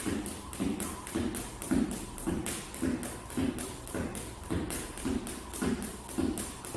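Skipping rope in a speed-jumping leg, its rapid, even strikes on the floor about five times a second, with duller thumps about twice a second.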